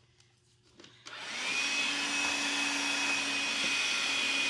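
A small handheld vacuum cleaner switched on about a second in, its motor whine rising briefly and then running steadily.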